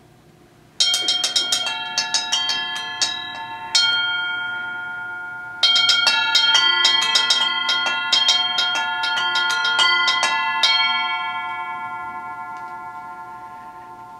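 Tuned metal percussion struck in two quick runs of many different bell-like notes, several strikes a second, the notes ringing on and overlapping, one run starting about a second in and another about halfway through. After the second run the notes are left to ring and slowly fade.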